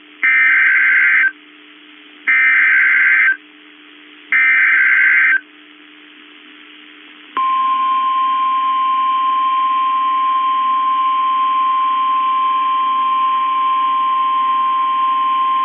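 Emergency Alert System SAME header: three one-second bursts of warbling digital data tones, each a second apart. About seven seconds in, the long steady single-pitch NOAA Weather Radio warning alarm tone begins, marking the start of a new weather warning broadcast.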